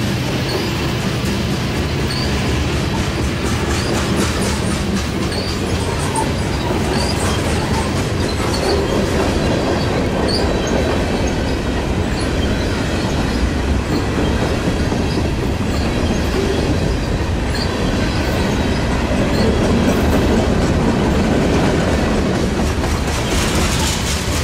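Norfolk Southern freight train H70 rolling past: a steady loud rumble of freight cars, with repeated wheel clicks over the rail joints and occasional faint high wheel squeaks.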